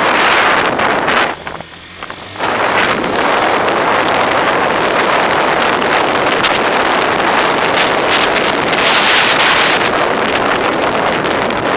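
Wind rushing over the microphone of a camera on a moving motorcycle, with the bike's engine running underneath. The wind eases briefly about a second and a half in, then comes back up.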